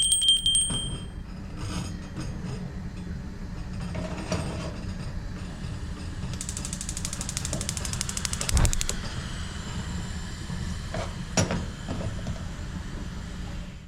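A motor-driven machine running steadily with a clattering, ratcheting mechanism, starting with a short high tone and cutting off abruptly at the end.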